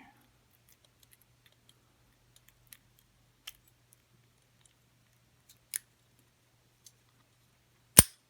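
Lock pick working the pins of a brass padlock with security pins: scattered faint metallic clicks every second or so, then one much louder sharp click near the end.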